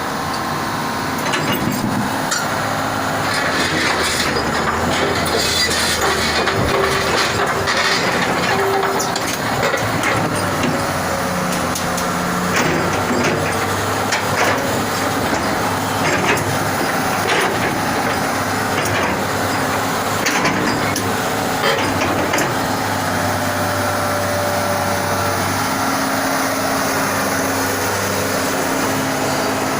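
Komatsu PC200-6 excavator's diesel engine running steadily, its tone shifting in strength now and then, with scattered short knocks.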